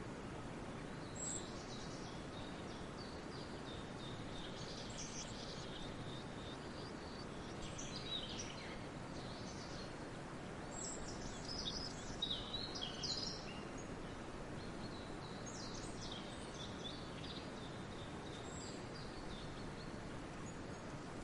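Birds chirping and singing in short high bouts over a steady background hiss of outdoor ambience, busiest about halfway through.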